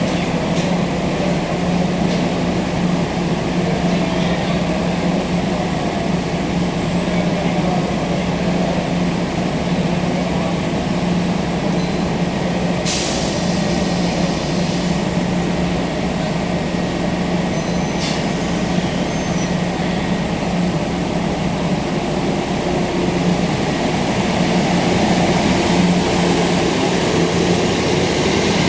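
Kintetsu local electric train standing at a station platform with a steady low hum from its equipment, and two short hisses of compressed air, one about halfway through and another some five seconds later. Near the end it starts to pull away, its motor sound rising in pitch and getting louder.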